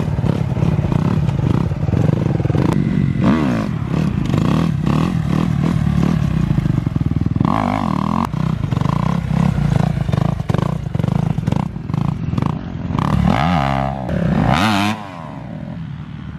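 Dirt bike engine running hard as the bike is ridden, its revs rising and falling several times near the end before it drops back suddenly.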